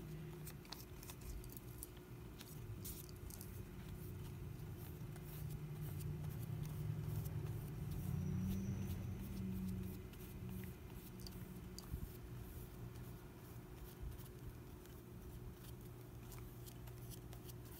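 Electric fan humming steadily, with faint soft dabs and strokes of a glue brush on napkin paper. A low rumble swells about five seconds in and fades again about ten seconds in.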